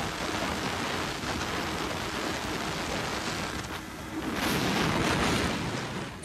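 Wind rushing over the microphone of a motorcycle ridden at speed: a steady loud rush that swells louder for about a second and a half near the end.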